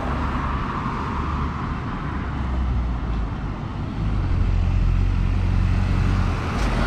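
Road traffic on a busy city road: a steady rumble of engines and tyres, with a heavier vehicle's low engine hum growing louder from about four seconds in.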